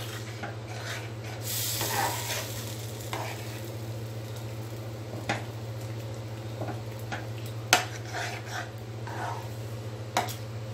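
A metal spoon stirring a thick, bubbling ragi flour and jaggery halwa mixture in a pan on the stove, scraping through it with a few sharp clicks of the spoon against the pan. The mixture is still cooking off its water before the ghee goes in.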